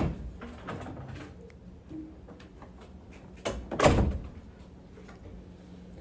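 A few light knocks, then a louder double thud about three and a half seconds in.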